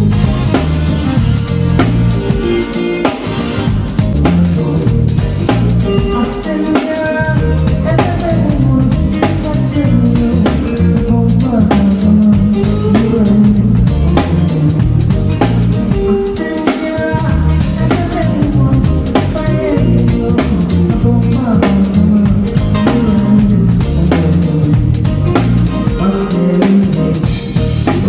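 Live band playing a steady groove, the drum kit to the fore with kick drum, snare and rimshots over bass and other instruments.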